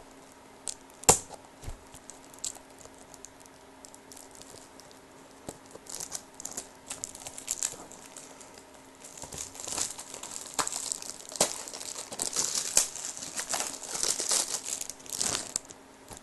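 Plastic shrink-wrap being torn and crinkled off a DVD case by hand: a sharp click about a second in, scattered crinkles, then steady crinkling and tearing through the second half.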